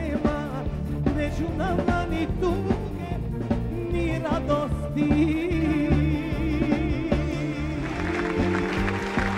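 Live pop-folk band music: the song's closing passage over a steady bass and drum beat, with a wavering melody line on top.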